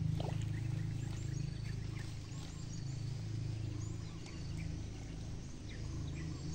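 Scattered bird chirps and short whistles over a steady low rumble.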